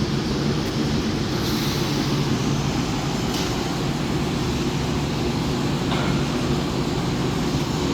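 Steady mechanical drone with a low hum and a broad hiss, even throughout, like a fan or compressor running.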